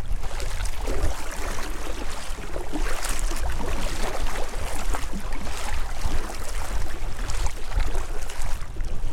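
Kayak paddle strokes: the double-bladed paddle dipping and splashing water beside the hull, one surge every second or two, over a steady low wind rumble on the microphone.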